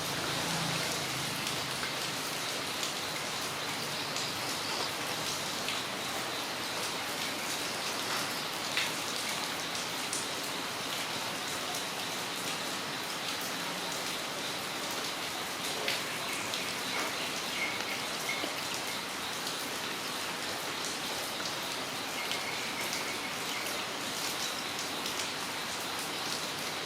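Steady rain falling on a yard, an even hiss of rainfall with many individual drops ticking close by.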